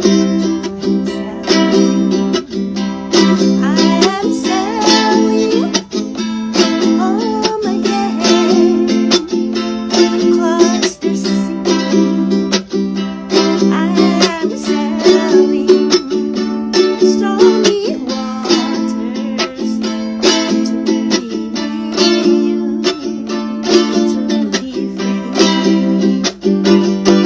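Ukulele strummed steadily in a small room, an instrumental break with a wavering melody line over the chords at a few points.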